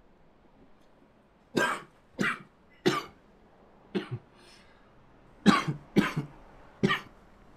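A man coughing hard into a handkerchief: seven coughs in two fits, four and then three, with a short pause between them.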